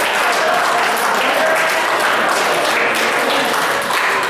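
Crowd of square dancers applauding steadily, with a few voices calling out, as the dance tune ends.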